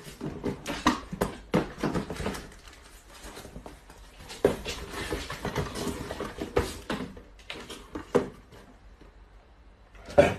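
Cardboard boxes being handled and packed by hand: irregular rustling, scraping and light knocks of cardboard, with a denser stretch of noise midway and a sharp knock near the end.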